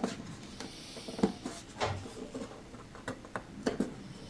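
Scattered light clicks and taps of hands and tools handling an archtop guitar on the workbench.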